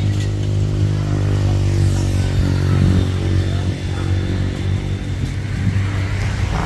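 An engine running steadily at idle, a low even hum that holds one pitch throughout.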